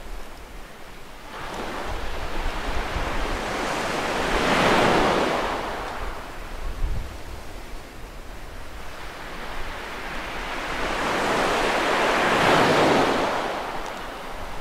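Sea surf on a sand beach: two waves break and wash up the shore, the first swelling to a peak about five seconds in and the second about twelve seconds in, each then fading away. A low wind rumble buffets the microphone underneath.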